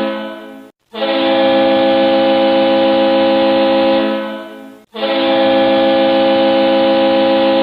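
Ice hockey arena goal horn sounding in long blasts: one blast fades out and stops just under a second in, a second blast runs about four seconds before fading, and a third starts about five seconds in and is still going at the end.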